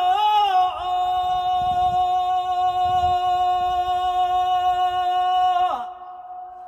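Unaccompanied male voice chanting a devotional tasbih. It ornaments the pitch briefly, then holds one long steady note for about five seconds, which glides down and breaks off near the end, leaving a faint lingering tone.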